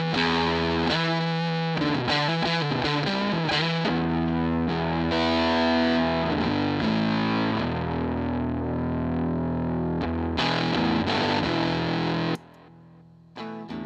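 Electric guitar played through a Dunlop Fuzz Face fuzz pedal into a Fender Pro Junior 15-watt tube amp: thick, distorted chords and held notes. About twelve seconds in, the sound drops suddenly to much quieter, thinner picked notes as the red Fuzz Face is stomped on.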